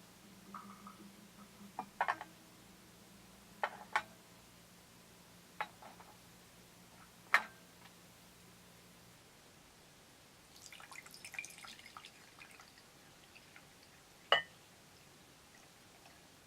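Scattered light clicks and taps of small hard objects, with a brief patch of small clatter about ten to twelve seconds in, over a faint steady hum that stops about nine seconds in.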